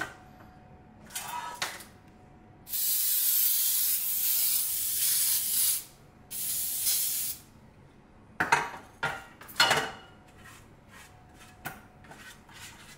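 Aerosol cooking spray hissing onto a cake pan in two bursts, a long one of about three seconds and then a shorter one of about a second, followed by a few knocks.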